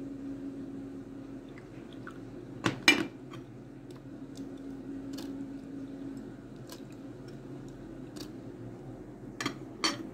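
Kitchenware clinking: scattered light ticks of utensils against dishes, with two louder double knocks about three seconds in and again near the end, over a steady low hum.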